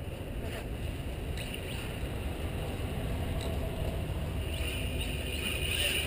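Wind buffeting the microphone as a steady low rumble. Near the end, a faint rising whine from the RC truck's brushless electric motor as it speeds up.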